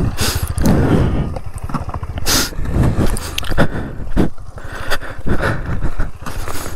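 Footsteps crunching and scuffing over dry grass and loose stones, irregular, over a motorcycle engine running.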